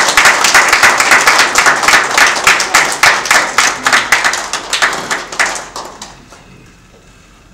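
Small crowd applauding with rapid hand claps, dying away about six seconds in.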